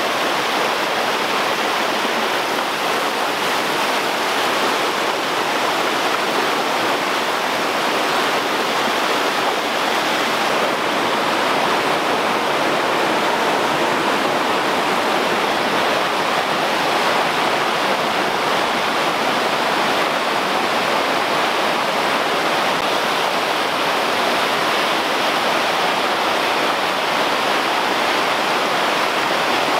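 Creek water cascading over boulders in small waterfalls, a steady rush of white water.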